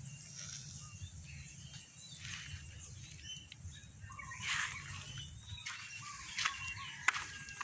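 Small birds chirping in short calls, over a steady high whine; toward the end, sharp clicks and squelches of footsteps in wet mud.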